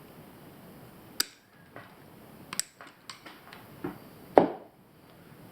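Elastic tent-pole shock cord being cut off and handled: a few separate sharp clicks and snips, the loudest about four seconds in.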